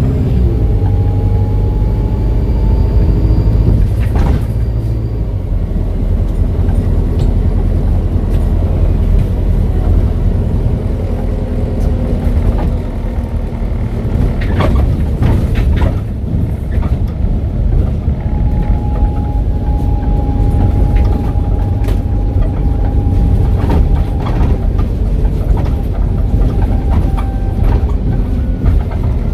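ADL Enviro 400H double-decker bus, converted from hybrid to diesel, running on the move with a heavy engine and road rumble. A thin turbo whistle rises about a second in and another holds steady through the second half, with a few knocks and rattles.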